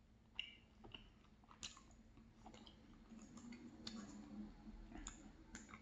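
Quiet close-up eating sounds: ice cream with crumbled almond tart being chewed, with scattered small wet clicks and crunches, the sharpest about half a second in and again at about a second and a half.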